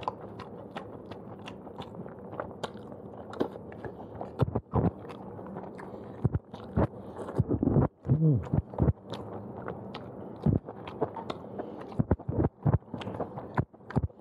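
Close-up chewing and mouth sounds of a man eating fried udon noodles with chopsticks, with many sharp clicks throughout and a short hummed voice sound about eight seconds in.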